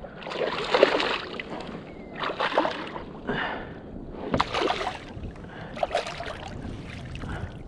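Water splashing around a kayak in a string of separate splashes, one about every second or so.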